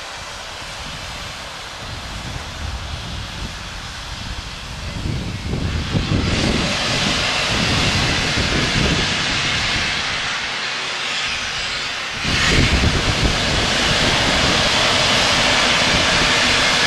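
BR Standard Class 4MT 2-6-0 steam locomotive pulling away slowly with its cylinder drain cocks open: a loud hiss of steam that grows about five seconds in and jumps again about twelve seconds in.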